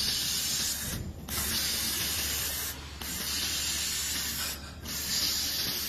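Automatic laser welding machine welding an impeller: a steady hiss in runs of about a second and a half, broken by short pauses three times as the weld moves on from seam to seam.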